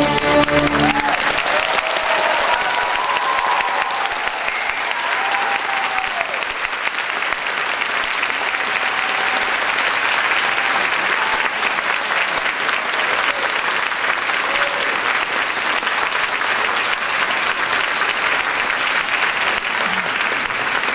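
An orchestra's last chord stops about a second in, and an audience breaks into steady applause, with a few cheers in the first seconds.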